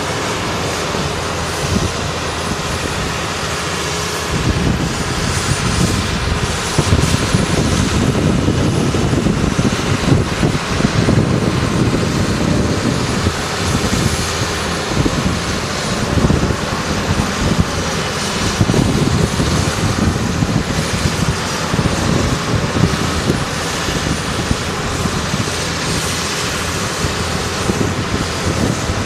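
Diesel engines of farm tractors and a wheel loader running under load on a maize silage clamp, a trailer unloading chopped corn. The engine noise is dense and low, and gets louder about four seconds in.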